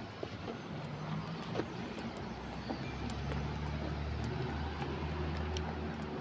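A Honda CR-V driving slowly past at close range, its engine running with a low, steady hum that grows louder about two seconds in as it comes near.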